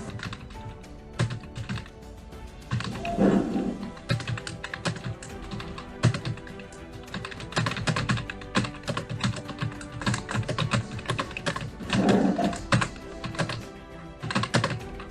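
Fast, continuous typing on a Prodot computer keyboard, the keys clicking several times a second, with background music playing under it.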